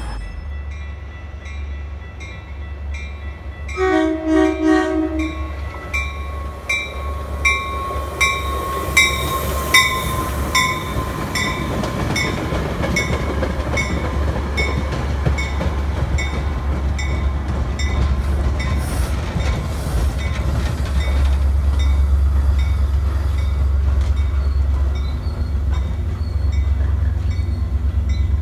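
Metra commuter train passing: a short horn blast about four seconds in, then the steady rumble of the bilevel gallery cars rolling by, with a regular ringing tick about twice a second.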